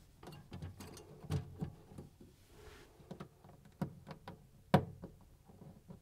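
Faint scattered clicks, taps and rustles of hands handling a fridge defrost sensor's wire and plastic clips against the plastic back panel, with one sharper click about three-quarters of the way through.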